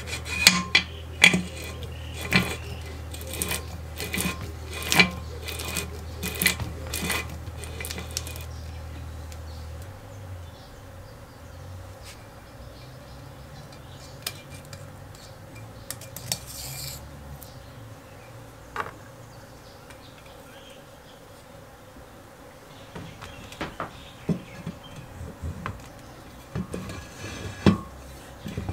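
Metal clinks and knocks as a mower's ribbed aluminium roller, its steel shaft and its geared drive assembly are handled and fitted together. There is a quick run of sharp clinks over the first several seconds, a few scattered ones in the middle, and more near the end as the second roller half goes on.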